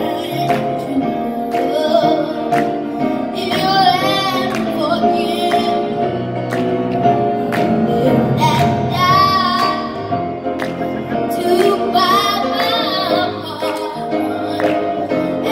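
A young boy singing into a microphone over backing music with a steady beat, his voice holding wavering notes.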